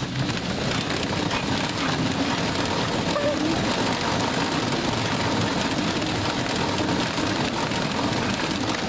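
Dog treadmill running steadily under a trotting bulldog: an even mechanical running noise with fine rapid clatter and a faint steady whine.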